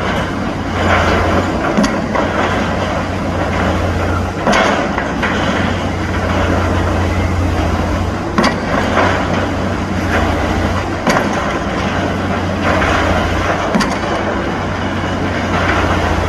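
Pile driver at work: its engine runs steadily with a low hum, and the hammer comes down on the pile with a sharp heavy strike about every three seconds.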